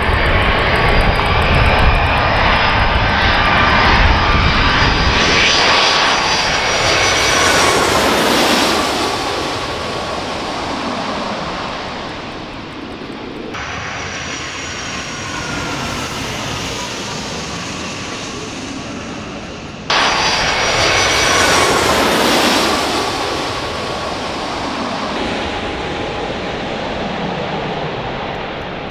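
Boeing 757's twin turbofan engines passing low directly overhead on final approach: a loud jet roar with high whining tones that fall in pitch as it goes by, then fade. It is heard twice, the second pass starting abruptly about two-thirds of the way in.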